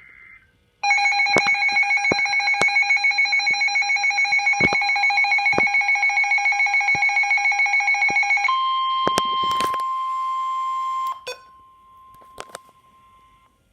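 Weather alert radios sounding a severe thunderstorm warning. First comes a loud electronic alarm pulsing several times a second for about eight seconds. It then gives way to the steady 1050 Hz NOAA Weather Radio warning tone, which drops much fainter about eleven seconds in and stops just before the end. A few sharp clicks are scattered through it.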